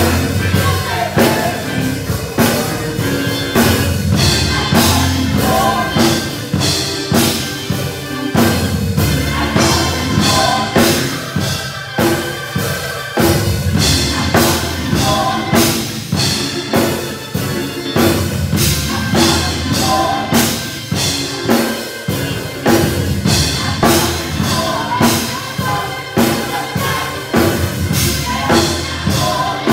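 Live gospel praise singing by a small group of singers, backed by a band with a drum kit keeping a steady beat of about two strokes a second.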